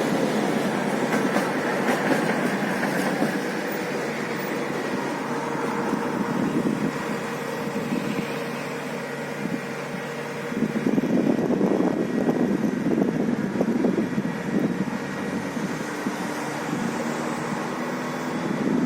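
Steady machine or vehicle running with a constant hum, growing louder and rougher about eleven seconds in, then settling again.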